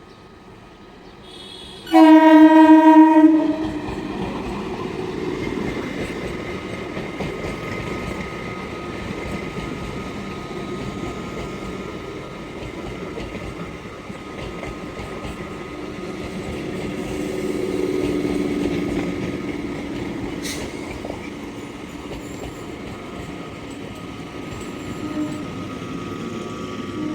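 Indian Railways locomotive horn giving one loud blast about 2 seconds in. The train then runs past with a steady rumble and wheels clattering over the rails, swelling in level a little past the middle.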